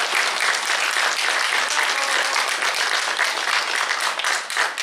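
Audience applauding, a dense clapping that grows a little sparser near the end, with single claps standing out more.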